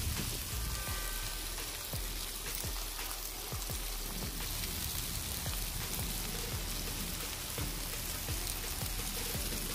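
Shrimp, salmon and vegetables sizzling on a Blackstone flat-top griddle: a steady frying hiss with scattered small pops.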